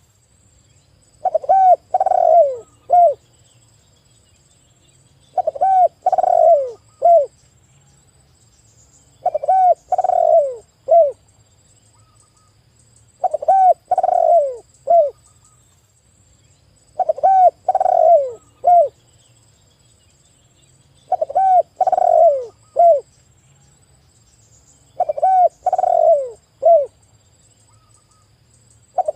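Spotted dove cooing: a phrase of three or four falling coos, the last one short, repeated about every four seconds, seven times.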